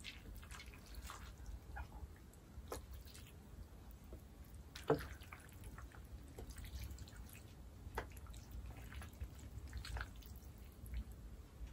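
Wooden chopsticks mixing saucy noodles on a plate: faint wet squishing and sticky clicks, with a few sharper taps. A swallow near the end.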